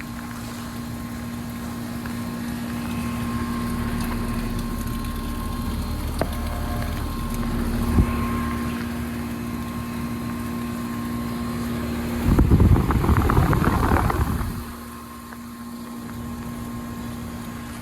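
Outdoor heat pump units running, a steady hum with a held compressor tone. About twelve seconds in, a loud rushing noise rises over it for about two seconds and then fades.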